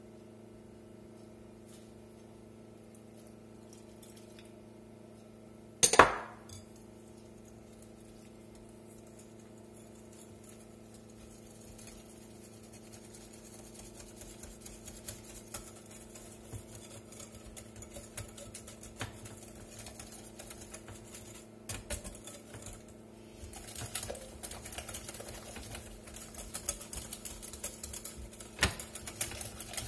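Wire balloon whisk beating pancake batter in a glass mixing bowl: quick, busy clinking of the wires against the glass that starts about halfway through and grows livelier toward the end. One loud knock about six seconds in, over a steady low hum.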